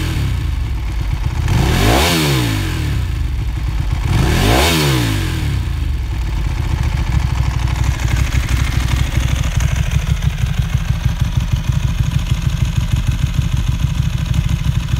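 2010 Ducati Streetfighter 1098 S's L-twin engine through Termignoni exhaust, revved in neutral with two quick throttle blips in the first five seconds, each rising and falling back, then settling to a steady idle.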